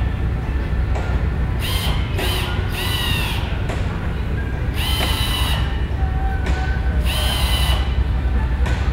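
Power drill running in short bursts, about six times, each whine lasting under a second, over a steady low hum of aircraft maintenance work.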